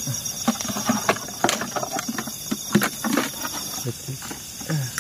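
A steady, fast high trill of night insects, with irregular rustling and crackling close by as leafy plants are pushed through and handled.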